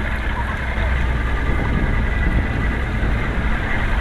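Motorboat engine running steadily: an even low rumble under a constant hiss of noise, getting a little louder about a second in.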